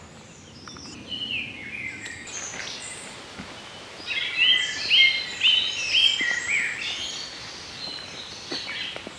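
Songbirds singing. The loudest is a phrase of about five quick, repeated, similar notes about halfway through.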